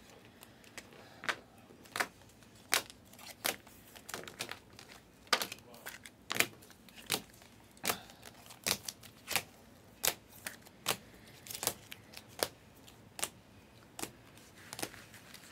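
Clear rigid plastic card holders (toploaders) clicking against each other as trading cards are flipped through one at a time: a short sharp click about every three-quarters of a second.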